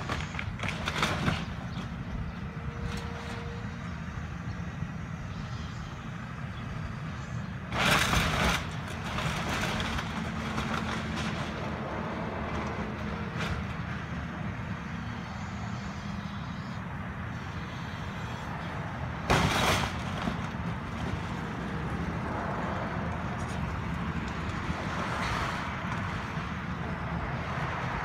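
Caterpillar tracked excavator's diesel engine running steadily while it tears into a house, with two loud crashes of breaking material, about a third of the way in and again about two-thirds through, and a few smaller knocks.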